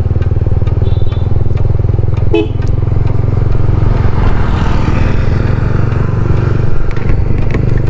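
Motorcycle engine running steadily under way, mixed with wind and road noise. A brief higher-pitched tone sounds about two and a half seconds in.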